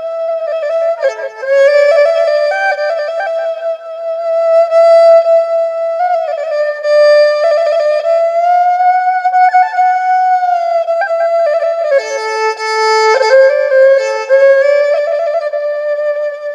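Instrumental background music: one sustained melody line gliding between long held notes.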